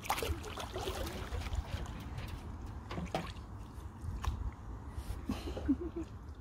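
Canoe paddling on calm water: paddle blades dipping and pulling, with water trickling off them, and a few light knocks scattered through.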